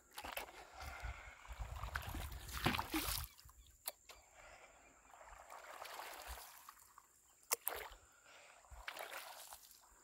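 Paddle strokes in calm river water from a small paddled boat: quiet, repeated swells of splashing and sloshing, with two sharp knocks about four and seven and a half seconds in.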